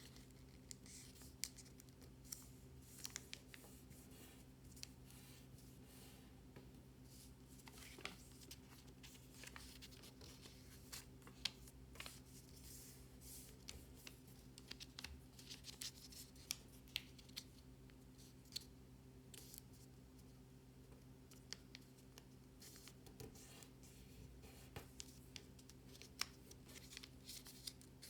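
Paper being folded and creased by hand: faint, scattered crisp ticks and scrapes as folds are made and pressed flat, over a steady low hum.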